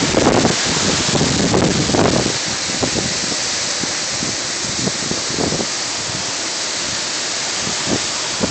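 Hurricane wind and driving rain: a steady, loud hiss with gusts buffeting the microphone, heaviest in the first couple of seconds and flaring up again briefly later on.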